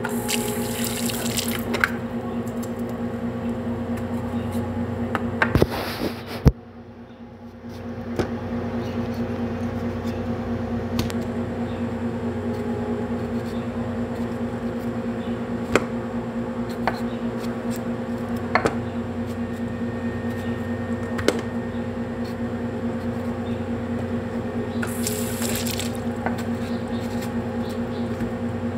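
Kitchen tap water running in three short spells at a sink, with scattered small knocks and clicks of produce being handled over a steady low hum.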